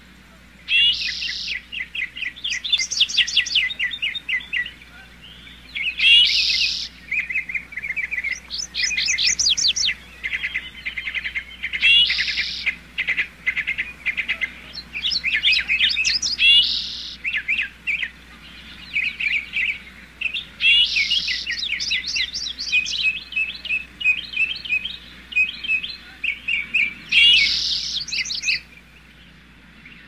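Songbirds singing in a busy chorus of fast trills, chirps and repeated notes, with a brighter, louder phrase about every five seconds.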